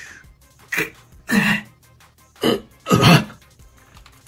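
A man's voice giving four short pained grunts, acting out hero figures knocked to the ground.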